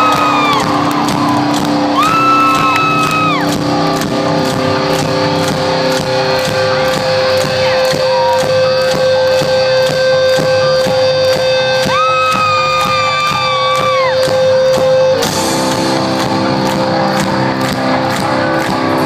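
A rock band plays live and amplified in an arena: electric guitars and drums keep a steady beat, with held notes laid over it. About fifteen seconds in, the music moves into a new section.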